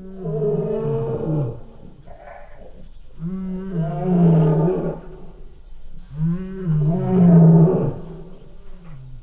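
Big cat roaring: three long, drawn-out roars about three seconds apart.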